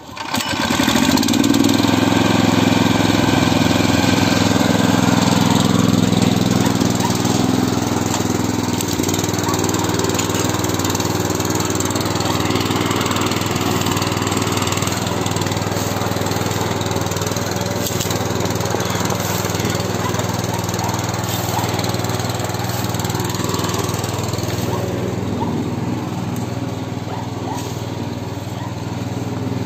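Small air-cooled single-cylinder engine of a two-wheel walk-behind tractor catches about half a second in and runs steadily. It is a little louder for the first few seconds after starting, then settles.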